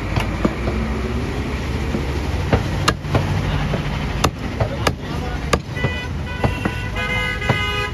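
Cleaver chopping goat meat on a wooden log chopping block: about ten sharp, irregular chops. Under them runs a steady rumble of road traffic, and a vehicle horn sounds in the last two seconds.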